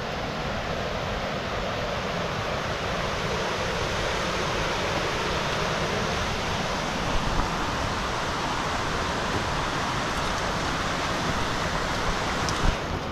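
Mountain stream rushing: a steady noise of fast-flowing water, with a short knock near the end.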